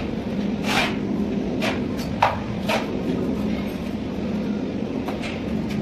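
Mason's steel trowel scraping and tapping wet mortar, about five short scrapes with a sharper knock a little over two seconds in, over a steady low hum.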